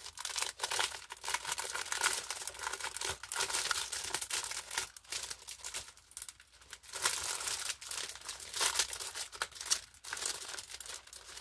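Thin clear plastic packaging crinkling and rustling as hands open it and slide out a plastic sheet, in irregular crackly handfuls with brief pauses.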